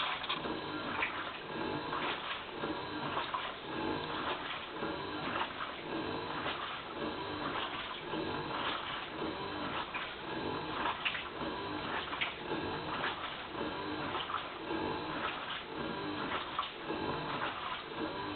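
Toshiba AW-DG16WAG top-load washing machine in its wash cycle: water churning and sloshing in the tub, with a pulse repeating about once a second, and the motor noise that the owner records as abnormal.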